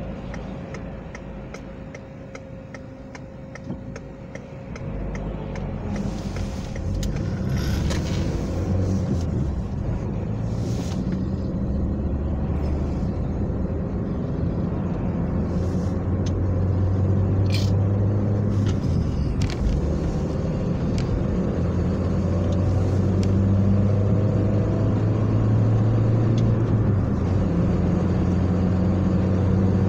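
Inside a moving car's cabin: the turn-signal indicator ticks steadily for the first few seconds, then engine and tyre noise grows louder as the car pulls out and picks up speed. A few short whooshes come from lorries passing in the other lane.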